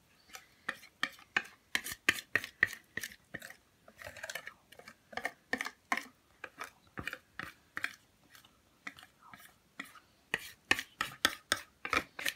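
A utensil scraping cake batter out of a plastic mixing bowl into a cake tin: quick short scrapes, several a second, easing off for a moment a little after halfway.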